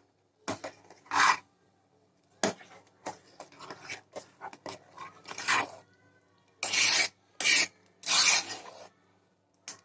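Spoon scraping against a cooking pan while stirring a thick mixture of milk, crumbled cake and sago, as a string of short uneven scraping strokes with a longer run near the end.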